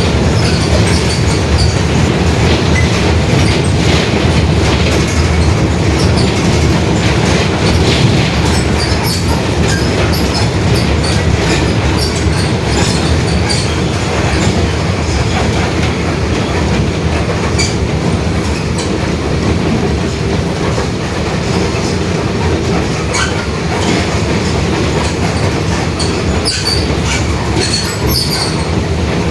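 Mercedes-Benz OF-1721 city bus under way: the diesel engine runs with a steady low drone and the differential is growling, while frequent rattles and clicks come from the body.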